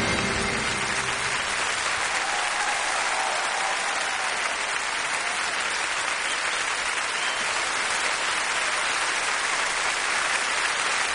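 A large theatre audience applauding steadily as the accompanying music fades out about a second in.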